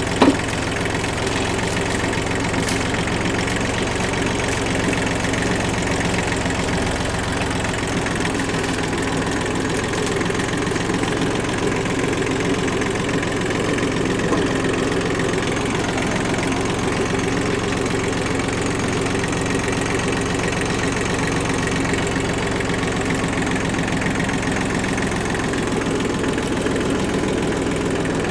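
Kubota tractor-loader-backhoe's diesel engine running steadily while the backhoe works the road, with one short sharp knock just after the start.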